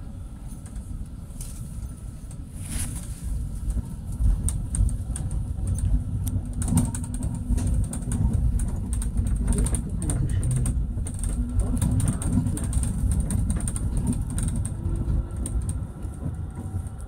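Tram running along its track: a steady low rumble with many clicks and rattles, getting louder about four seconds in.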